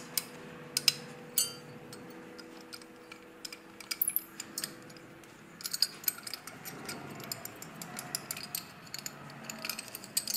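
Ratcheting wrench clicking in quick runs as the bolts holding the stud extractor kit's drill guide block to an LS cylinder head are undone, with scattered sharp metal clinks.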